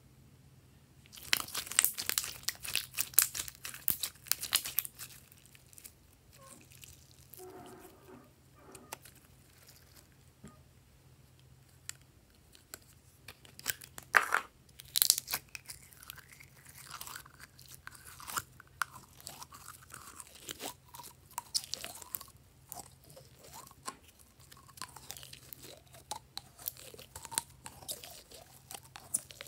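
Slime being squeezed and pressed by hand into foam beads, sprinkles and sequins: a dense run of crisp crackling clicks for the first few seconds, then quieter scattered crackles and pops. One sharp click stands out about halfway through.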